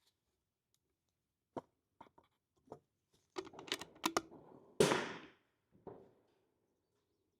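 A run of irregular sharp clicks and knocks, bunching together a little past the middle, then one louder sharp clack about five seconds in that rings out briefly, and a last softer knock.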